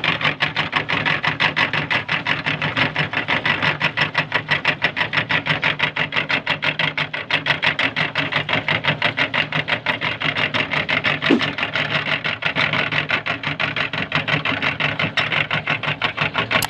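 Meat grinder running steadily, its motor and auger making a fast, even pulsing rhythm as it grinds soft marbles. A brief sharp squeak comes about two-thirds of the way through.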